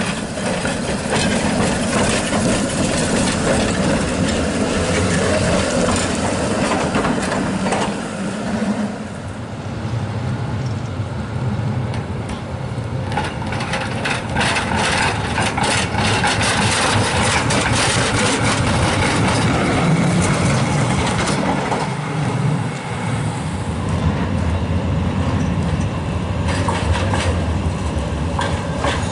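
Historic trams (a Konstal, an ex-Vienna Lohner E1 and an ex-Frankfurt Duewag Ptb) passing one after another on street track, giving a steady rumble and motor hum. There is a run of sharp clicks from wheels on the rails from about 9 to 16 seconds in.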